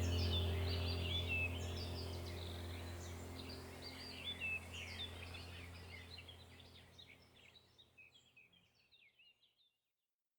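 Songbirds chirping and twittering busily over a steady low hum, all fading out to silence near the end.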